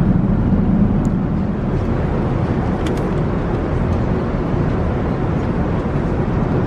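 Steady roar of an Airbus A380 economy cabin in cruise: the even rush of air and engine noise heard from a passenger seat.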